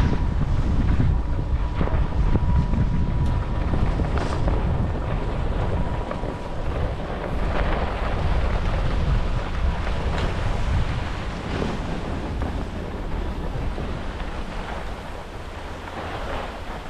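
Wind rushing and buffeting over the GoPro's microphone during a downhill ski run, with the skis hissing and scraping over the snow. The rush eases off somewhat near the end.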